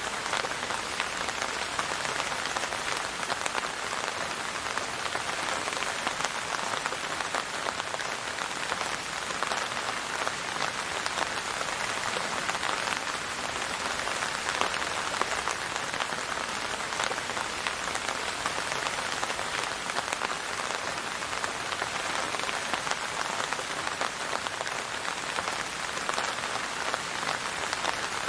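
Steady rain falling on a surface, a dense even patter of drops with no thunder or music.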